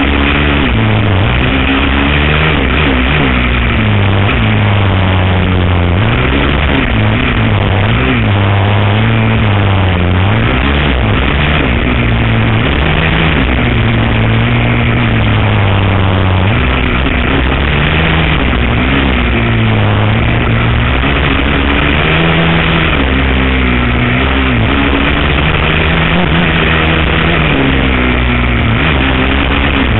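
A 450 cc single-cylinder four-stroke sport ATV engine is ridden hard up close. Its pitch rises and falls again and again as the throttle is worked through the gears.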